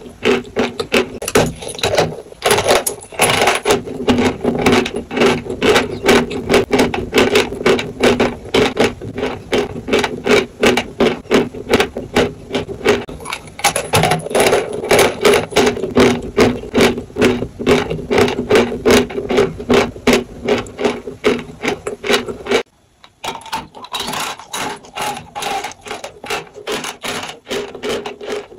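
Dry chalk being bitten and chewed up close, a fast run of crisp crunches several times a second. The crunching breaks off abruptly a little over 22 seconds in, then starts again quieter.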